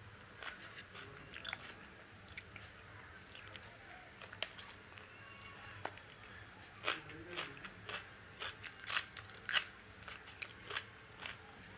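Close-up eating sounds: chewing, then crisp crunching bites into a slice of raw red onion. The crunches come thick and sharp from about seven seconds in.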